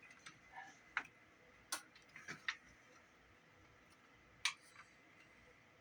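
Small clicks and taps of a portable cassette player's plastic casing and parts being handled and fitted back together: a handful of separate clicks over a few seconds, the loudest about four and a half seconds in.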